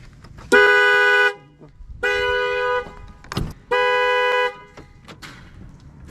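2007 Acura RDX's horn blaring three times in long, even blasts about a second and a half apart: the car alarm going off because the battery cable has been reconnected. A sharp click falls between the second and third blasts.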